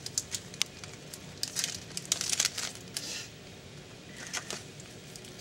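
Trading cards and a foil card-pack wrapper being handled: crinkling rustles and sharp little clicks, in several short bunches.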